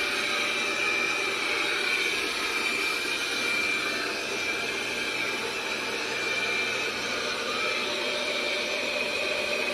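iNIC i9 robot vacuum running: a steady suction-motor whine over an even airy hiss.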